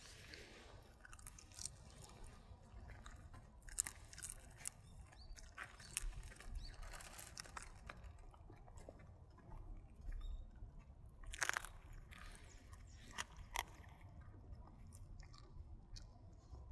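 A dog chewing and crunching a dried duck bone: irregular sharp cracks and crunches, the loudest about four, eleven and thirteen seconds in.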